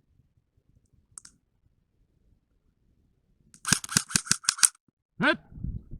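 Airsoft gun firing a quick string of about seven sharp shots, roughly six a second, just past the middle. A faint click comes about a second in, and a short sound sliding down in pitch follows the shots.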